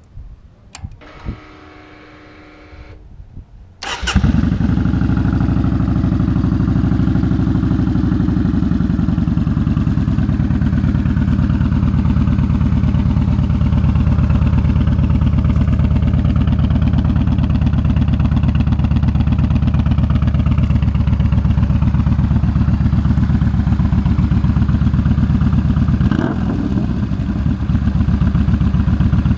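Yamaha Bolt's air-cooled 942 cc V-twin, fitted with a Vance & Hines Twin Slash full exhaust, being started: the electric starter whines for a couple of seconds, the engine catches about four seconds in and settles into a loud, steady idle, with a short blip of the throttle near the end.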